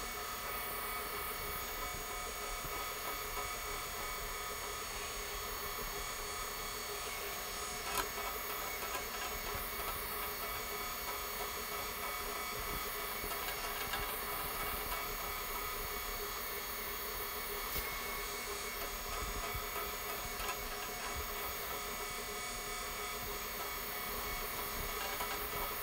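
Rotary floor buffer running steadily with a constant motor whine, driving a 100-grit sanding screen over a cured epoxy floor to scuff it and knock off burrs before the top coat.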